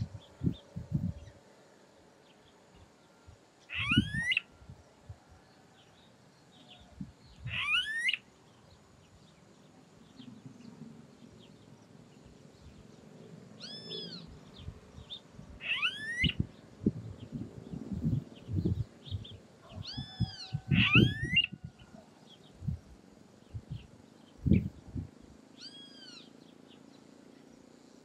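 Smooth-billed ani calling: four whining, steeply rising whistles a few seconds apart, with three shorter arched notes between them. Scattered low thuds run under the calls.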